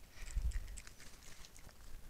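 Dry leaf litter and debris crackling and rustling as an animal rummages close to the microphone, with a low thump about half a second in.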